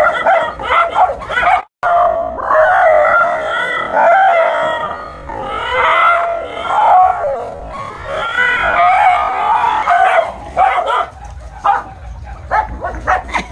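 A dog barking and howling without a break at a toy tiger. Near the end the calls give way to a quick run of short, sharp sounds.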